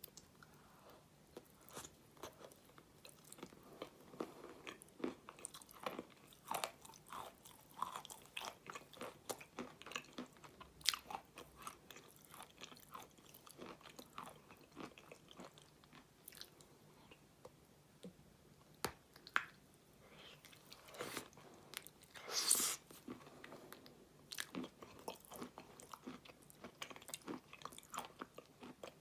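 Close-up eating sounds of someone eating ice cream: irregular wet mouth clicks, smacks and chewing, with one louder, longer crunchy sound about two-thirds of the way through.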